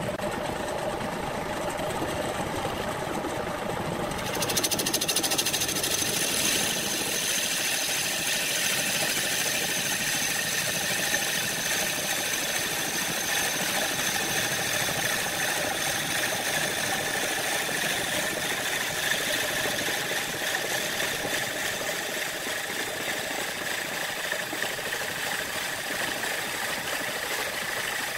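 Wood lathe running while a long boring bar hollows out the inside of a wooden vase, the cutter steadily shearing off shavings. The cutting grows louder and hissier about four seconds in.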